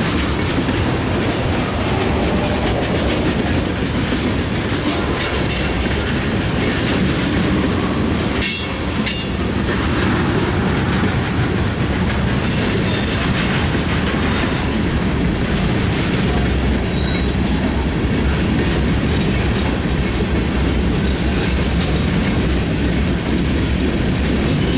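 Freight cars of a passing train rolling by: a steady rumble of steel wheels on the rails with clickety-clack over the joints. A sharp knock comes about nine seconds in, and a couple of short, high wheel squeaks come later.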